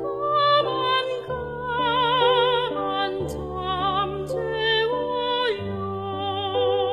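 Closing instrumental passage of a Korean art song: a melody with vibrato over sustained low accompaniment notes that shift a few times.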